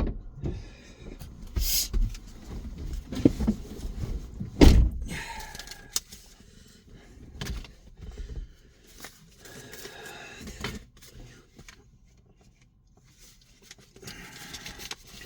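Scraping and knocking of things being handled, with a series of knocks in the first few seconds and one heavy thump a little under five seconds in, then fainter scuffing.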